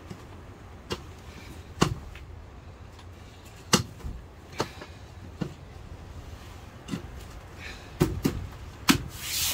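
Camping gear being handled and put together: about nine sharp clicks and knocks, irregularly spaced, with a short rubbing hiss near the end, over a steady low rumble.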